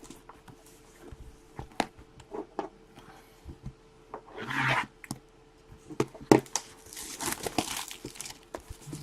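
Trading card packaging being handled and opened: plastic wrap and cardboard crinkling and tearing, with scattered light taps and clicks. There is a short rustle about halfway through and a longer crinkling stretch near the end.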